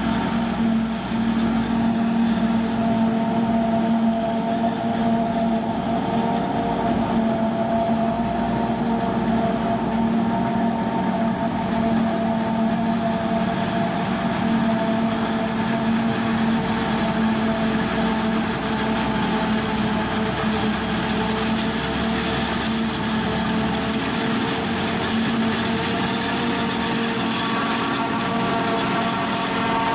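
John Deere 7450i self-propelled forage harvester at work chopping maize, with the tractor and trailer running alongside to take the crop: a steady, loud machine drone carrying several high, steady whining tones.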